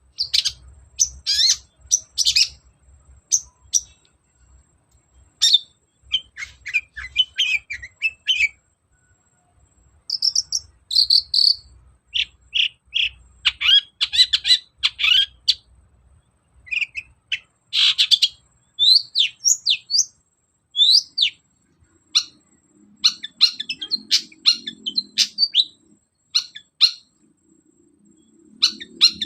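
Long-tailed shrike (cendet) in full song: loud, rapid runs of chirps, whistles and short harsh notes, delivered in phrases with brief pauses between them.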